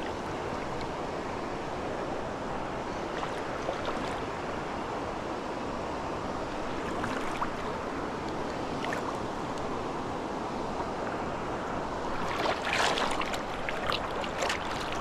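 Creek water running steadily over rocks, with a few short, sharp knocks near the end.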